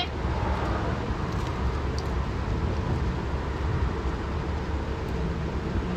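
Steady low rumble and road noise of a car on the move, heard from inside the cabin.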